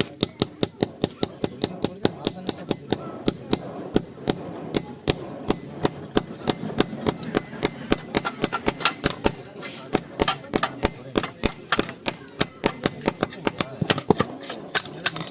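Blacksmith's hammer striking metal on an anvil in fast, even blows, about four a second, over a high ringing from the anvil. The blows pause briefly twice.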